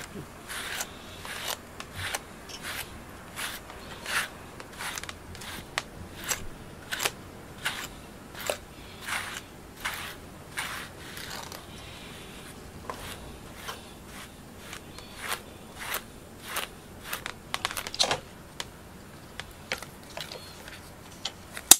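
Pet brush raking through a cat's thick fur in repeated scratchy strokes, a bit more than one a second, pulling out loose shedding undercoat. A sharp click near the end.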